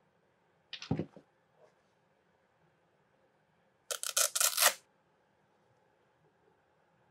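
Hook-and-loop strap on a toddler's slip-on sneaker being ripped open: a crackling tear lasting just under a second, about four seconds in. About a second in, a shorter rustle of the shoe being handled.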